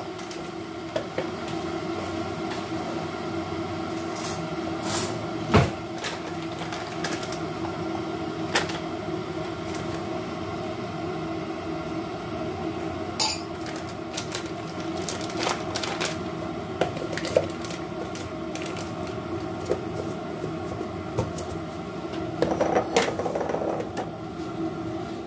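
A steady appliance hum runs under small kitchen handling sounds: a glass mug set down on a granite counter, a foil coffee sachet torn open and emptied, and a louder knock about five seconds in. Near the end there is a short run of clatter.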